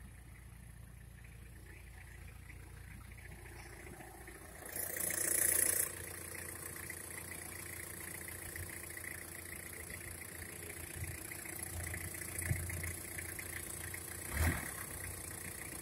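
Turbodiesel engine idling steadily, heard at the open engine bay. About five seconds in comes a louder rushing noise lasting about a second, and near the end a single short thump.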